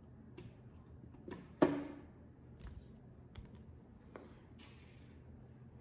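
Handling noise as painting gear is moved: one sharp knock with a short ring about a second and a half in, then a few light clicks and a brief rustle.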